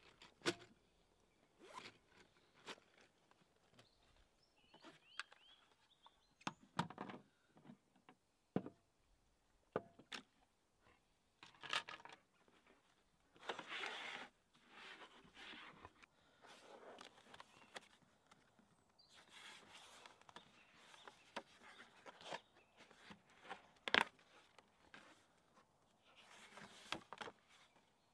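Hands working with art supplies on a wooden table: scattered sharp taps and clicks as pens, jars and a pad are set down, a zipper on a canvas pouch, and several stretches of paper rustling as sheets are handled and folded.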